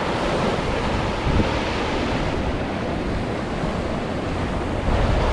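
Sea waves surging and washing against shore rocks, with a wave hitting harder and louder near the end.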